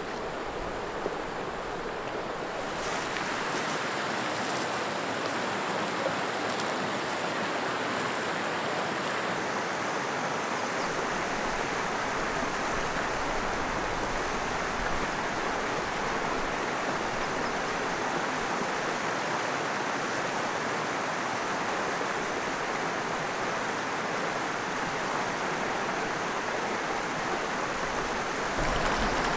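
Steady rush of water from a brook's rapids.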